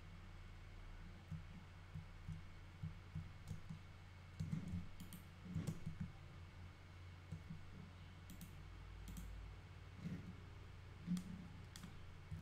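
Scattered computer mouse clicks and keyboard key presses, with a cluster of clicks around the middle and a louder one near the end, over a steady low hum.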